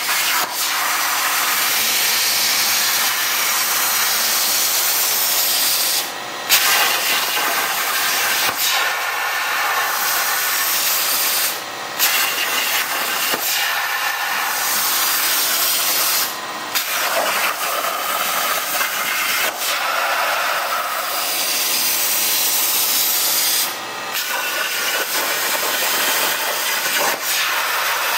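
Hypertherm Powermax plasma cutter on a CNC table, its arc hissing steadily as it cuts quarter-inch metal plate. The hiss drops out briefly four times, about every five seconds, as the arc stops at the end of a cut and fires again for the next one.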